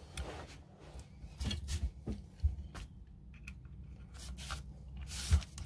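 Small screwdriver turning the upper grip screw into an airsoft 1911 pistol's grip: a scatter of faint clicks and scrapes from the screw, driver and grip, with a short rushing noise about five seconds in.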